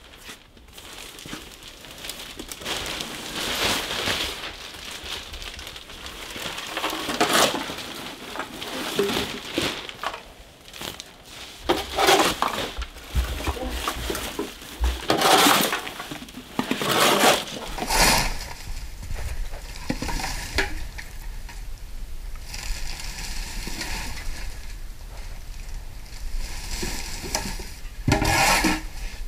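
Household trash being scooped up and bagged by hand: plastic bags, bottles and papers rustling and crinkling in irregular bursts.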